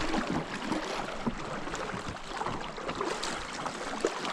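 Small fishing boat being moved forward on a river: water swishing around the boat, with scattered light knocks against the hull.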